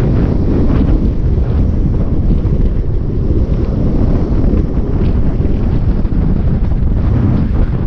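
Wind buffeting the microphone of a bicycle rider's action camera while the bike rolls along at speed. The rumble is steady and low.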